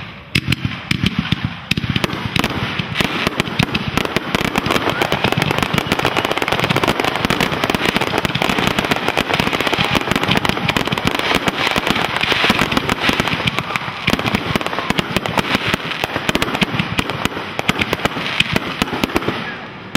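Fireworks finale barrage: a dense, unbroken string of rapid pops and bangs, many shots going off at once, with crackling between them.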